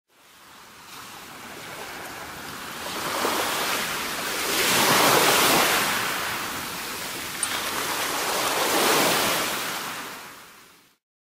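A rushing noise with no tune, fading in, swelling to a peak about five seconds in and again near nine seconds, then fading out.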